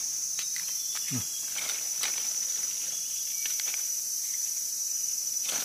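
Steady high-pitched drone of forest insects, with a few faint clicks and scrapes as a small knife cleans soil from the stem of a freshly picked bolete mushroom.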